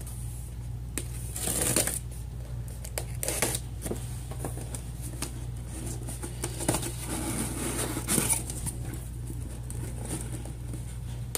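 A shipping package being opened and unpacked by hand: irregular rustling and crinkling of packaging with scattered small clicks and knocks, over a steady low hum.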